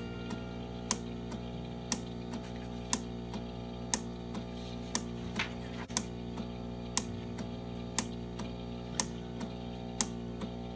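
SAR-1000 small animal ventilator cycling at 60 breaths a minute, its valves clicking once a second, each sharp click followed by a softer one a fraction of a second later. Soft background music underneath.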